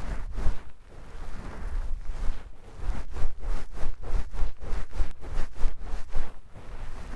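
Towel rubbing and scrubbing right against the microphone in quick repeated strokes, about three a second, with a low rumble from the cloth handling the mic.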